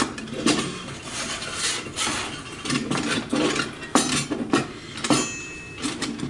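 Thin sheet-metal panels of a TOPS folding hobo stove clinking and clattering as they are handled. A series of irregular light metallic knocks, some against the wooden tabletop.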